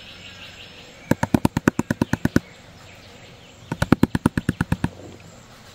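A hand rapidly tapping the rim of a plastic gold pan in two quick runs of about ten sharp knocks each, roughly nine a second, to settle the heavy black sand and gold while washing back concentrate.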